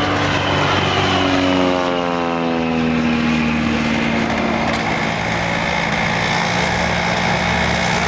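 Light single-engine propeller plane flying past, its engine drone sliding down in pitch as it passes in the first few seconds, then running steadily.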